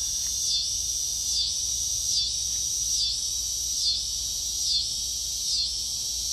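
Cicadas buzzing loudly in a high, steady chorus that swells and dips in a regular pulse a little more than once a second.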